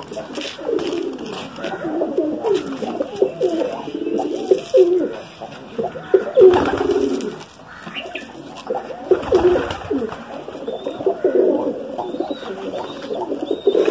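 Several domestic pigeons cooing, their calls overlapping continuously.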